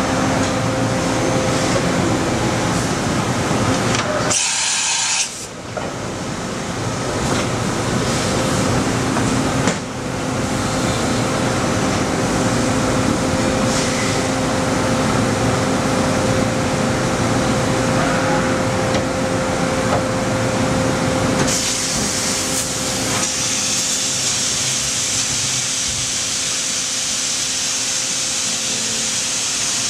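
Kitamura Mycenter automatic pallet changer shuttling its two pallets, with a steady mechanical hum. A short break about four seconds in, and a steady hiss of air joins about two-thirds of the way through.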